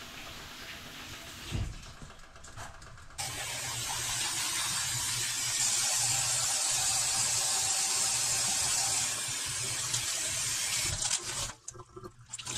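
Water running hard from a kitchen tap, a steady hiss that starts abruptly about three seconds in and stops near the end.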